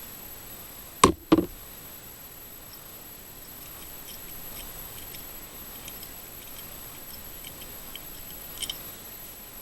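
Two sharp knocks about a second in, a third of a second apart, then faint scattered small clicks: tools and small carburetor parts being handled and set down on a hard work surface while the choke assembly is transferred.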